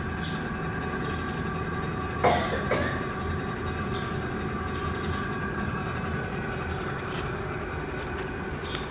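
24 V 250 W brushless rear hub motor spinning a 700c wheel with no load at its top speed of about 32.6 km/h, giving a steady whine over a low hum. Two short clicks come a little over two seconds in.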